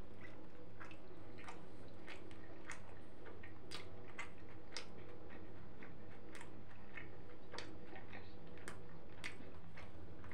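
Close-up chewing of a mouthful of shawarma: wet mouth clicks and smacks that come irregularly, a few a second, over a steady low hum.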